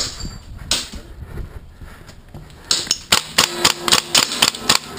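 Airsoft rifle firing: a single shot, another just under a second later, then a quick string of about ten shots, roughly five a second, fired in rapid succession.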